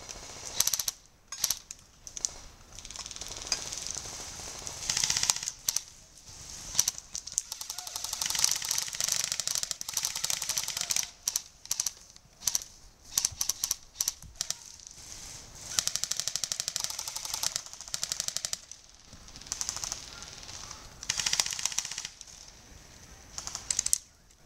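Airsoft guns firing: rapid strings of clicking full-auto bursts, several in succession, mixed with scattered single shots.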